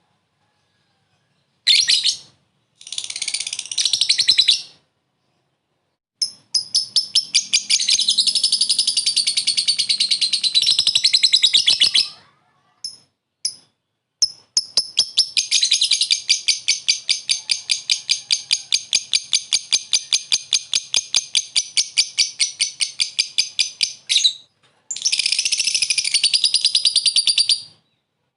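Lovebird singing its long chattering 'ngekek' song: shrill runs of rapid repeated notes, about five a second, the longest lasting about ten seconds, broken by short pauses and a few single chirps.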